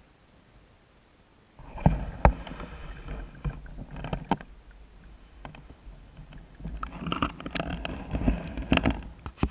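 Water sloshing and splashing around a GoPro in its waterproof housing on a landing net as the net is worked through the water at the surface, with many sharp knocks and clicks. It begins suddenly after a quiet first second and a half, eases off briefly about halfway through, then builds again.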